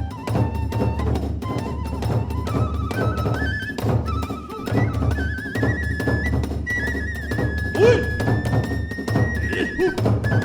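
Kagura hayashi accompaniment: a high bamboo flute melody stepping between held notes over a steady beat of big drum and small hand cymbals.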